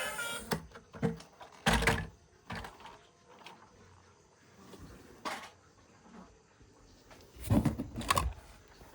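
Scattered knocks and clatters of toy vehicles and their packaging being handled, with a loud knock about two seconds in and a busier cluster of knocks near the end.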